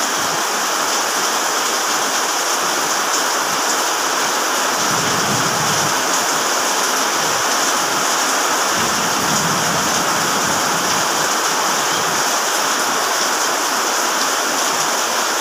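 Heavy rain falling in a steady downpour, an even hiss. Twice a low rumble swells beneath it for a second or two.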